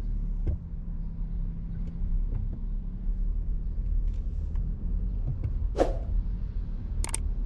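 A vehicle on the road with a steady low rumble, and a brief whoosh about six seconds in.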